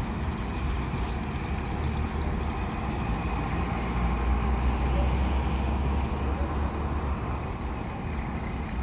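Freight train of slag-laden hopper wagons, hauled by a GR12 diesel locomotive, rumbling steadily along the track as it moves away. The rumble is deep and continuous.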